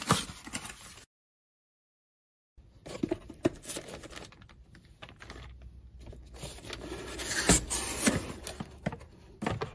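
Cardboard packaging and a plastic accessories bag rustling and crinkling as they are handled, with sharp taps and knocks of the cardboard. There is a short gap of dead silence about a second in.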